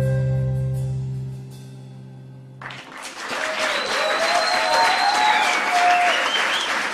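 The final held chord of a song fades out, then audience applause breaks out suddenly about two and a half seconds in, with a few voices calling out over it.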